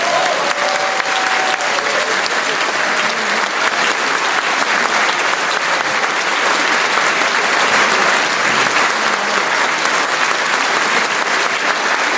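A large audience applauding steadily: dense, even clapping that runs on without a break.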